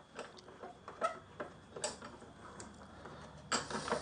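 Light, irregular metal clicks and ticks as a small bolt is set into a small bench vise, with a louder, longer scraping noise near the end.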